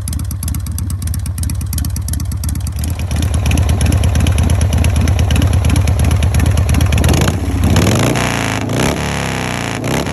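Harley-Davidson V-twin motorcycle engine running with a steady, loping firing beat. It gets louder about three seconds in, and its pitch rises and falls over the last few seconds as the bike is revved or ridden.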